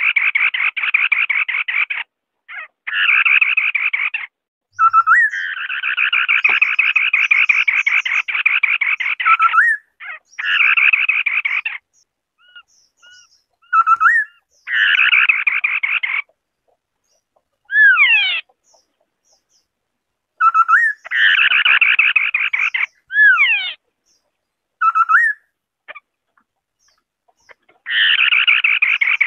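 White-browed scimitar-babbler calls: long, fast, rattling chatters several seconds at a stretch, alternating with short whistled notes and a few steep falling whistled slides.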